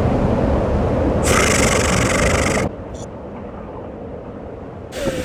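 Wind rushing and buffeting the microphone, with a hissing gust about a second in. It drops suddenly much quieter a little past halfway, then picks up again near the end.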